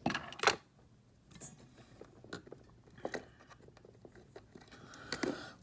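Small 1:64 Hot Wheels die-cast toy trucks clicking and tapping as they are handled and set down on a tabletop. There is one sharp click about half a second in, then a few faint scattered clicks.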